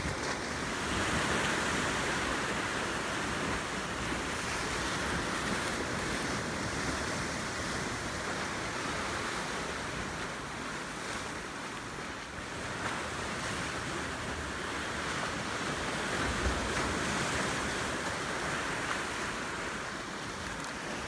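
Ocean surf washing and breaking against jetty rocks, a steady rushing hiss that swells and eases every few seconds.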